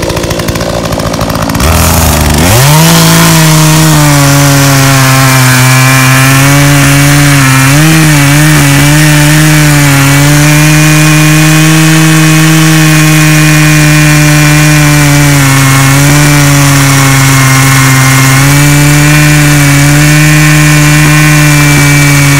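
Poulan Pro 42cc two-stroke chainsaw revving up from idle about two seconds in, then held at full throttle while cutting through an ash log, the pitch dipping slightly a few times under load. The revs fall away right at the end.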